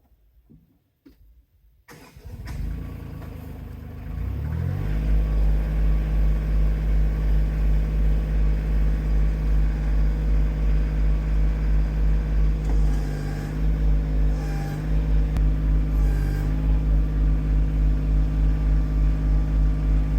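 An engine is started about two seconds in, picks up speed over the next couple of seconds, then settles into a steady run with an even, regular throb.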